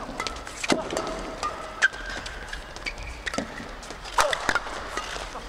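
Badminton rally: several sharp racket hits on the shuttlecock, irregularly spaced, with players' shoes squeaking on the court floor.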